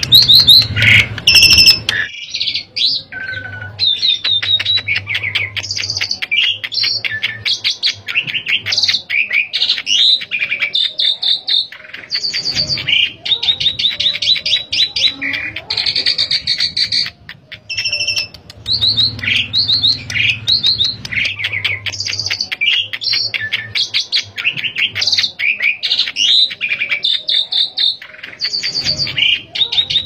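Asian pied starling (jalak suren) singing continuously in full song: a long, unbroken run of varied whistles and quick chattering notes, one phrase after another.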